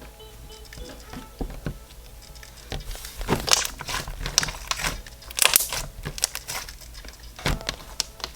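Floam slime, slime packed with big and small foam beads, being stretched and squished by hand, crackling and popping as its air pockets burst. The pops start about a second in and come thickest in the middle.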